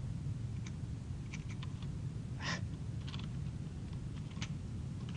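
A few scattered clicks from a computer keyboard and mouse being worked, irregularly spaced with one louder click about halfway through, over a steady low hum.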